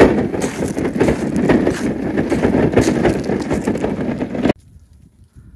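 A wheeled wooden shade shelter with a corrugated roof being pushed over bumpy pasture, its frame and roof rattling in a steady noisy clatter that cuts off suddenly near the end.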